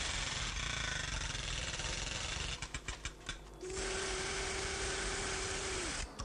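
Continuous rapid rattle of toy machine-gun fire in a children's war game. It stutters and breaks off about two and a half seconds in, then resumes with a steady tone under it, which dips at the end.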